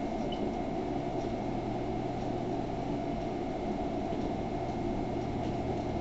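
Steady low hum and hiss of room tone, with no music or voices.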